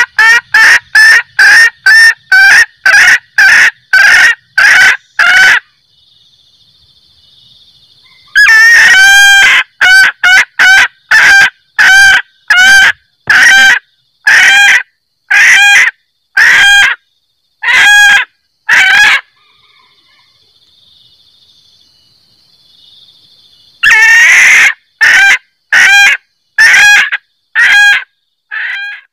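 Female junglefowl cackling: three runs of short, rapid 'kek' notes at about two a second, each run opening with a longer note, with pauses of a few seconds between runs. It is a hen's call used as a lure to draw in males.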